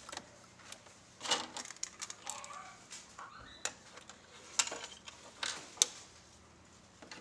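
Irregular small clicks and taps of plastic laptop parts and the screen assembly being handled and fitted during reassembly, a few sharper ones standing out.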